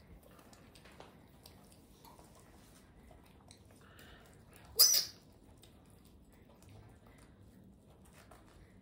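Pet monkey giving one short, loud, high-pitched squeal about five seconds in, over faint scattered clicks.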